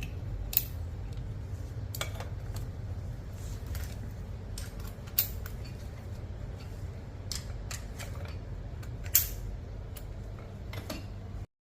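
Scattered hard clicks and clacks of a one-touch mechanism being worked by hand, three of them louder, over a steady low hum.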